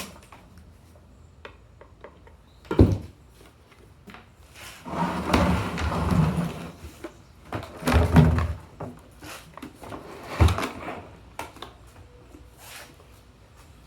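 Hollow plastic knocks, scraping and rattling as the moulded seat of a battery-powered ride-on toy tractor is worked loose and lifted off its mounting forks. There are three sharp knocks, about 3, 8 and 10 seconds in, with a rougher stretch of scraping between the first two.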